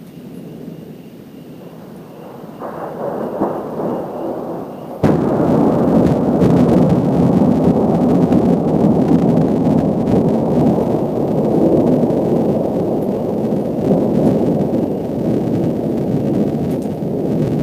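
Thunder rumbling, building from about two and a half seconds in, then jumping suddenly to a loud, sustained rumble about five seconds in that stays loud through the rest.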